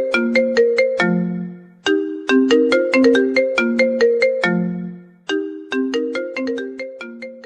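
Phone ringtone melody of quick struck notes, one short phrase played over and over: it starts again about two seconds in and about five seconds in, and the last run fades out near the end.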